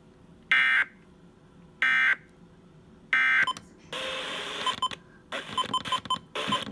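Emergency Alert System end-of-message data bursts: three short, buzzy digital tone bursts about a second apart, marking the close of the monthly test alert. Other broadcast audio comes in about four seconds in.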